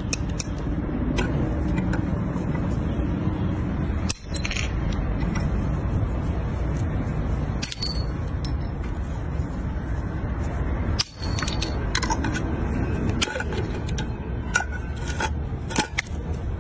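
Combination pliers cutting through steel drill bits and nails. The cuts give several sharp metallic snaps and clicks, some with a brief high ring as a piece breaks off, over a steady low background noise.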